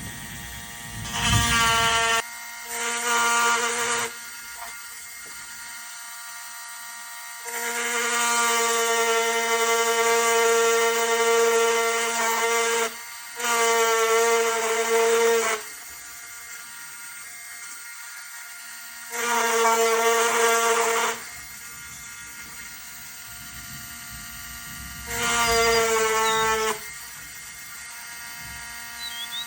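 Handheld rotary engraving tool whining in about six short runs of one to five seconds, stopping and starting as it engraves a date into a Swiss Army knife.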